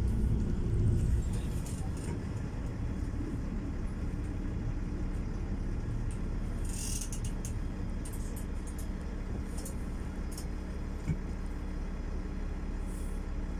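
Interior running noise of an LVT/S (Stadler Regio-Shuttle RS1) diesel railcar under way: a steady low rumble with an even hum, louder for the first second or so. A short hiss comes about seven seconds in and a single sharp click near eleven seconds.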